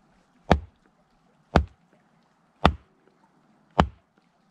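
A cheap machete chopping into a small round of firewood set on a log, taking small pieces off the edge for kindling: four sharp whacks about a second apart.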